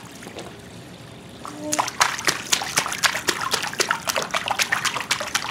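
Shallow water in an above-ground pool being splashed by hand, a quick run of splashes starting about a second and a half in.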